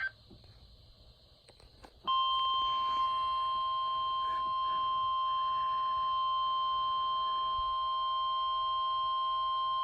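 NOAA Weather Radio warning alarm tone, the alert that comes before a National Weather Service severe thunderstorm warning: a single steady high tone that starts abruptly about two seconds in and holds without a break. A few faint clicks come before it.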